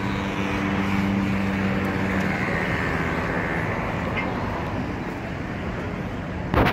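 Road traffic: cars driving past, with a steady low hum for the first two seconds. A short, sharp knock comes just before the end.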